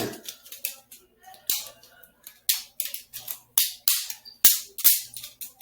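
Balisong (butterfly knife) handles clacking against each other and the blade as it is flipped and rolled in the hand: about a dozen sharp, irregular clicks.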